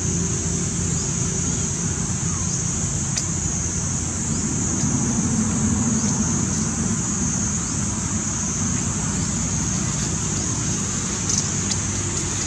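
Steady outdoor background noise: a low rumble under a constant high-pitched hiss, with a few faint short chirps.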